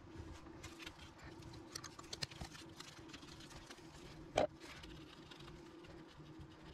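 Faint clicks and taps of a hand wrench and metal parts as the nuts holding the engine's cooling fan to the fan clutch are worked loose, with one louder metallic clank about four and a half seconds in. A faint steady hum runs underneath.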